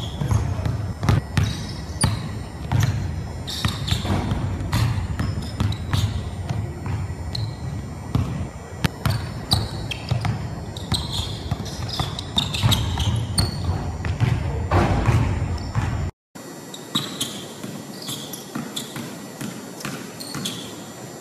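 A basketball dribbled rapidly on a hardwood gym floor, a quick run of sharp bounces. The sound cuts out briefly near the end and comes back quieter.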